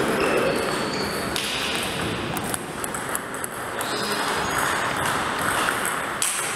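Table tennis rally: the ball clicking sharply off the rubber paddles and the table top, a few scattered hits, over steady background noise in the hall.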